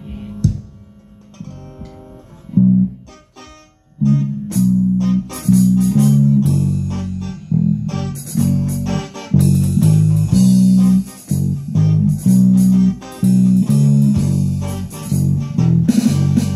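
A small live band playing an instrumental passage on guitar, electric bass guitar and an electronic drum pad. Sparse single guitar notes and a couple of thumps fill the first four seconds. Then the full band comes in with a repeating bass riff and a steady beat.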